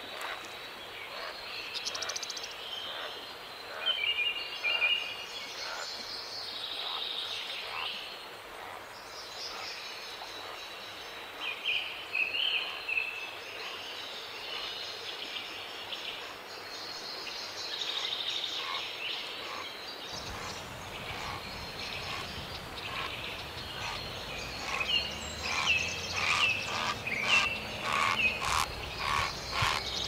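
Wild birds chirping and calling around a marsh over a steady outdoor hiss. Near the end a repeated call, about two a second, comes in louder, over a low rumble.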